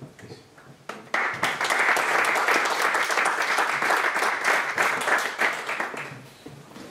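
Audience applauding, starting suddenly about a second in and fading away near the end.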